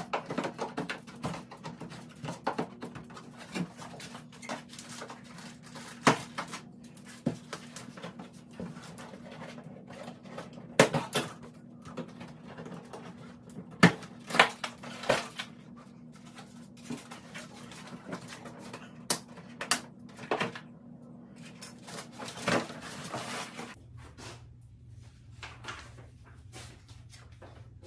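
Scattered sharp clicks, snips and knocks of scissors and packaging as a mountain bike is freed from its cardboard shipping box, over a steady low hum.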